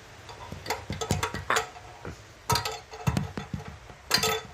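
A series of metallic clinks and knocks, some ringing briefly: small metal parts being handled and knocked together, in clusters about a second in, around two and a half to three seconds, and near the end.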